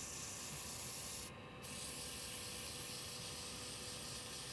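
320-grit sandpaper held against a wooden pen blank spinning on a lathe: a steady, soft sanding hiss that briefly drops out about a second and a half in.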